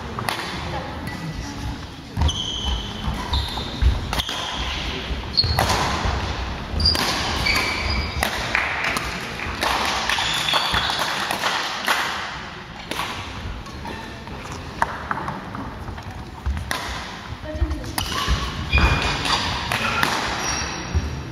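Badminton in a large sports hall with a wooden court: sharp hits and thuds of footwork scattered through, with short high squeaks of shoes on the floor and people talking in the hall.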